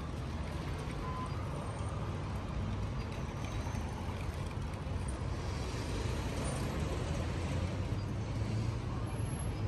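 Street traffic: a steady low rumble of passing cars and buses, growing a little louder past the middle.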